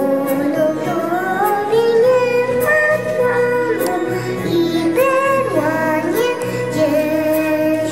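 Music: a woman singing a melody in long held notes over instrumental accompaniment.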